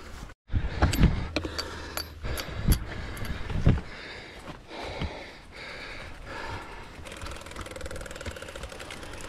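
Mountain bike clattering and rattling over rough, rocky ground, with several heavy knocks in the first few seconds, then a lighter steady rattle.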